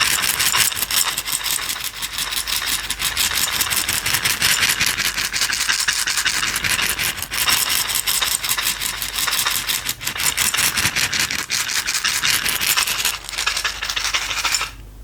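A container of small dry items (toothpicks or sesame seeds) shaken fast, giving a continuous dense rattle that stops sharply near the end.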